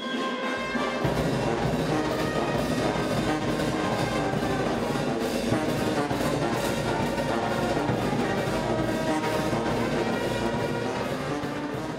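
Music led by brass instruments such as trumpets and trombone, with drums, playing steadily and starting to fade out near the end.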